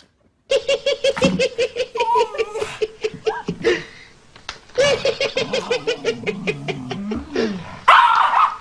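A person laughing in quick, even "ha-ha-ha" pulses, in two long runs: one starting about half a second in and one about five seconds in. A short, loud burst follows near the end.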